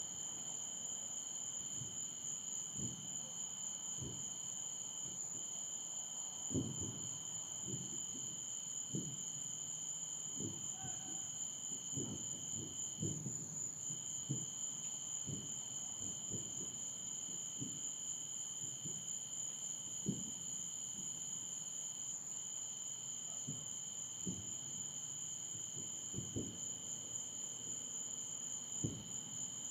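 Crickets chirring in two steady high tones, with irregular dull low thuds about once a second: distant propane cylinders exploding in a plant fire.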